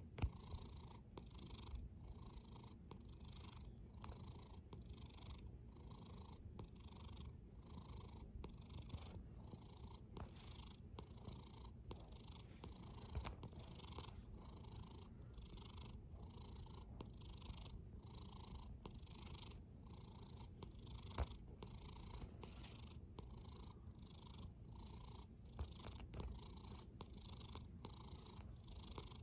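Cat snoring softly: a faint, steady low rumble with an even breathy rhythm a little under twice a second, and a few faint clicks.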